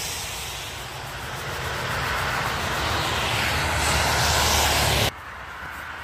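Heavy truck approaching and passing on a wet motorway: a low engine rumble with tyre hiss that swells, then cuts off suddenly about five seconds in.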